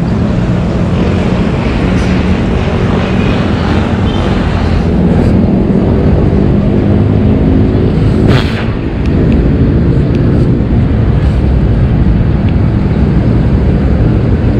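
Road noise heard from a moving e-bike: a loud, steady rush of wind and traffic, with engine hum from nearby vehicles in the middle stretch and one short, sharp noise about eight seconds in.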